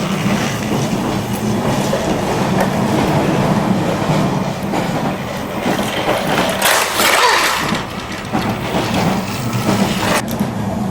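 Battery-powered Thomas & Friends toy train running along its track: a steady motor hum with the rattle of the wheels and carriages.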